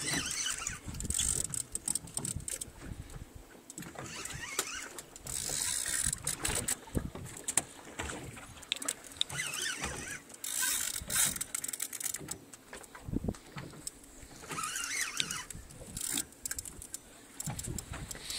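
Large spinning reel whirring in short bursts every few seconds as line is pumped and wound in against a heavy fish, with clicks and low wind and water rumble around it.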